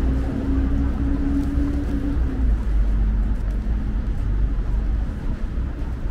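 Street traffic: a motor vehicle's engine hum that stops about two seconds in, over a steady low rumble of road noise.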